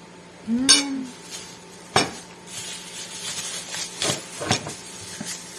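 Metal spoon clinking and scraping against a plate while eating, with sharp clinks about two, four and four and a half seconds in. A short hum from the eater comes about half a second in and is the loudest sound.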